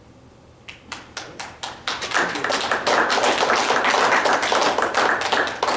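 Small audience applauding: a few scattered claps about a second in, building into steady applause, then thinning out near the end.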